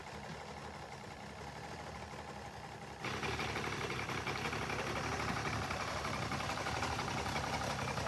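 Mercury 250 EFI V6 two-stroke outboard idling steadily in the water. About three seconds in, the sound abruptly gets louder and fuller.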